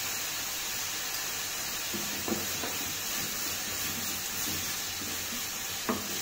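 Chopped onions frying in hot oil in a kadai, a steady sizzle as they soften towards golden. Two light knocks, about two seconds in and near the end, as they are stirred.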